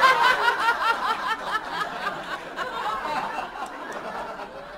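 A woman laughing heartily during a laughter-yoga exercise: quick repeated ha-ha pulses that grow gradually quieter.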